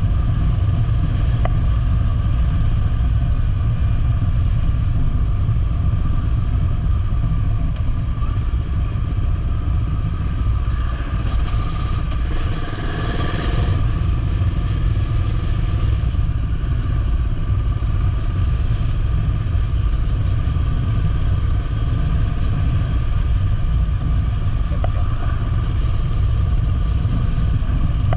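Honda motorcycle running at a steady pace with a constant low rumble; a brief swell of noise about halfway through.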